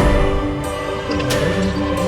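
Background music: sustained notes with a melody line and a struck beat about every two-thirds of a second.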